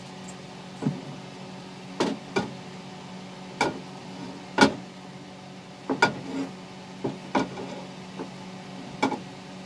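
Irregular light knocks and clinks of a pan and kitchen utensils being handled on the stove, about a dozen in all, over a steady low hum.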